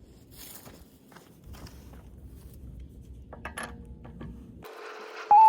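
Faint scattered clicks and rustles, then near the end a loud held guitar note begins the intro music.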